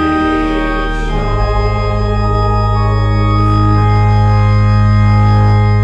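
Church organ closing a sung psalm tune: a chord change about a second in, then a long, loud held final chord.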